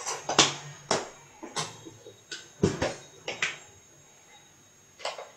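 A spoon knocking and clinking against a dish in a run of about ten sharp clicks, then one more near the end, as spice powder is tapped onto the fish.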